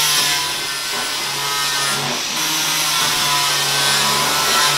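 Angle grinder grinding into the steel of a car body shell: a steady whine over a harsh rasp, its pitch wavering as the disc bites, easing off in level about a second in.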